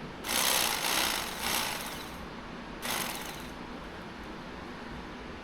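Rough rasping strokes of a hand tool cutting or scraping material: three strokes run together over about two seconds, then one shorter stroke.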